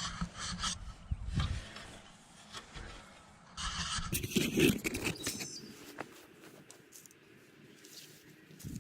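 Rustling and scuffing of a tow strap being handled and wrapped around a post, with a few light knocks; the busiest handling comes about halfway through.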